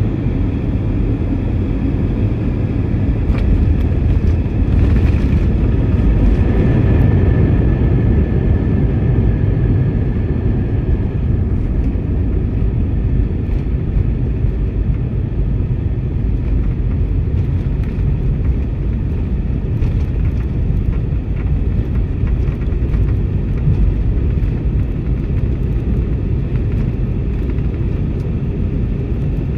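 Airliner cabin noise during landing rollout or taxi: a steady, loud low rumble of the engines and of the wheels on the ground. It swells with a faint whine between about four and ten seconds in, then settles.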